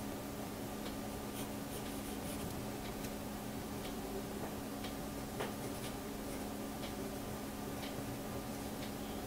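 Pencil scratching on paper in short, light strokes, over a steady faint electrical hum.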